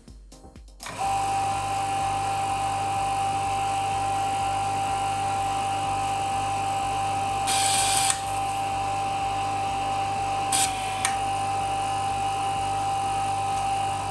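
FS-1501 high-speed punched-tape reader running, starting about a second in with a steady high whine over a low hum. A little before eight seconds in there is a short rush of noise as paper tape runs through it, and a couple of clicks follow a few seconds later.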